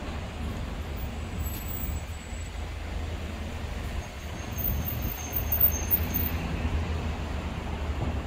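City street traffic: a steady hum of passing cars with a low rumble, growing a little louder about five seconds in.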